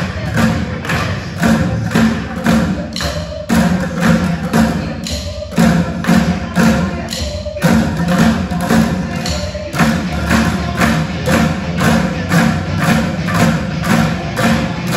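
An ensemble of drummers beating drumsticks on upturned plastic buckets in unison, a steady beat of about three strokes a second with low, hollow thuds, broken twice by brief pauses partway through.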